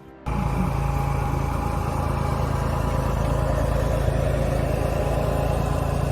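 A vehicle engine running steadily with a low hum, under a noisy hiss. It cuts in suddenly just after the start.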